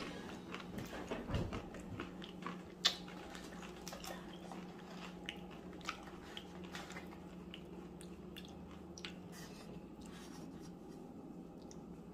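A person chewing a mouthful of crunchy tortilla-chip nachos with avocado, close to the microphone. Irregular crisp crunches come throughout, with one louder crunch about three seconds in, over a steady low hum.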